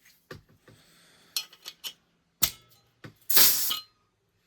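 A few light metallic clicks and clinks as the sheet metal and tool are handled, then a loud half-second blast of air as the Clarke pneumatic joggler fires on a thin piece of sheet steel.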